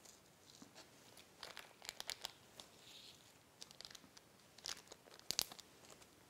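Faint crinkling of a small plastic parts bag as nylon screws and standoffs are taken out of it, with scattered light clicks of the small plastic parts dropping onto the table.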